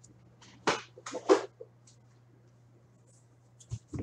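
Trading cards and pack wrappers being handled on a table: a few short rustling scrapes about a second in, then a couple of light taps near the end, over a low steady hum.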